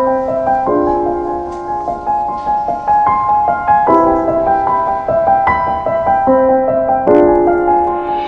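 Solo piano background music: a slow melody of single notes and chords, each struck note ringing and fading.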